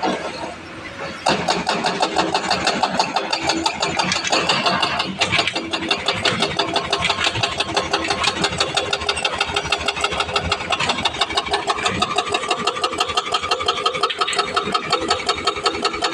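Hydraulic rock breaker on a Sany excavator hammering rock: rapid, evenly spaced blows, several a second, starting suddenly about a second in over the running engine.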